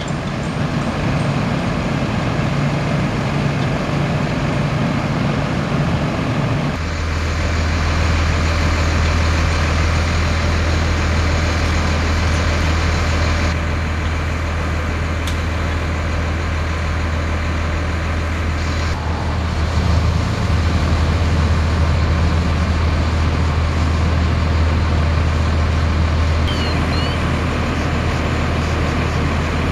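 Fire engines' diesel engines running at a fire scene, a steady low drone with a broad noise over it, shifting abruptly a few times where the shots change.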